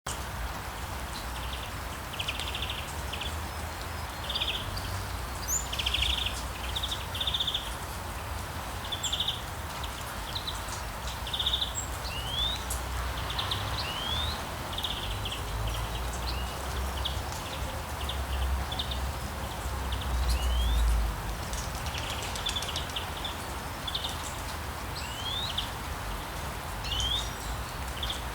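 Steady rain hiss with small birds chirping and singing throughout, in short trills and quick rising whistled notes. A low rumble runs underneath and swells for a few seconds past the middle.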